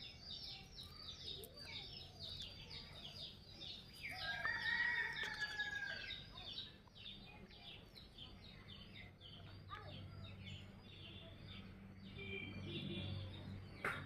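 Small birds chirping rapidly and continuously, with a rooster crowing about four seconds in, the loudest sound.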